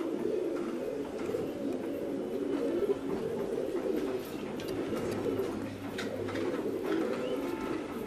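A flock of caged domestic fancy pigeons cooing, many birds at once, so their low coos overlap into one continuous chorus.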